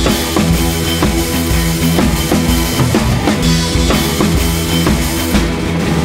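Background music: a drum-driven track with a steady beat over sustained bass notes.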